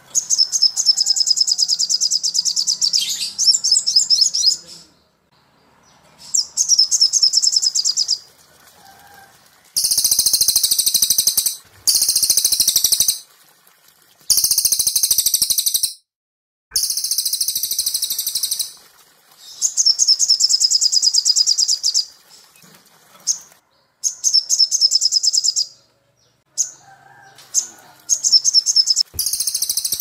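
Songbirds from a cage-bird training ('masteran') recording of cililin and sogok ontong (a sunbird): loud, very high phrases of one to three seconds with short pauses between. Fast, even trills alternate with denser, higher chattering bursts, as of two birds taking turns.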